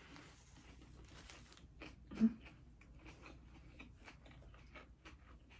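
Close-up chewing and biting of a Subway turkey and bacon sub loaded with crunchy vegetables: faint, irregular wet mouth clicks and crunches. There is one brief, louder low sound about two seconds in.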